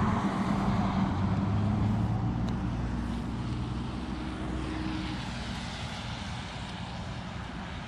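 Engine noise from a passing vehicle or aircraft, loud at first and fading steadily over several seconds, with a low hum that shifts slightly in pitch.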